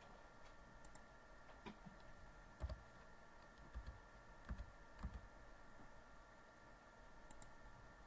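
Faint, sparse clicks of a computer mouse and keyboard, about half a dozen spread unevenly, with the firmest ones between about two and five seconds in, over a faint steady background tone.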